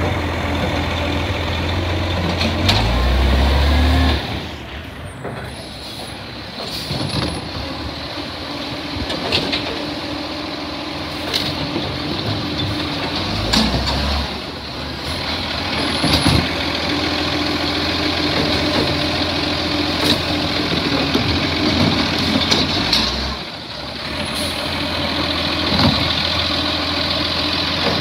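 Side-loader garbage truck on a recycling collection: its diesel engine runs steadily under hisses of the air brakes, with a number of sharp bangs as the automated side arm lifts and empties wheelie bins.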